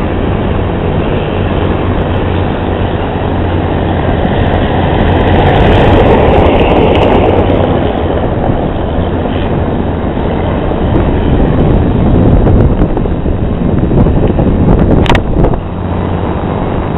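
Loud, steady roar of an airliner's engines, swelling twice as it passes, with a low rumble underneath and a sharp knock near the end.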